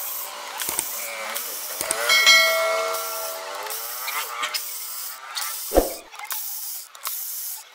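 Hand-working noises: several sharp clicks and knocks, scraping hiss, and a short squeak about two seconds in that slides down in pitch, with a heavier knock near the end.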